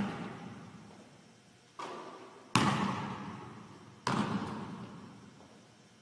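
A basketball striking a gym floor three times, each hit sharp and followed by a long echo that dies away slowly in the hall.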